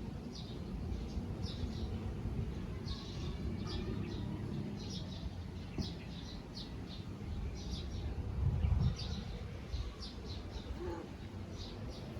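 Small birds chirping repeatedly in short high notes over a low background rumble, which swells briefly about two-thirds of the way through.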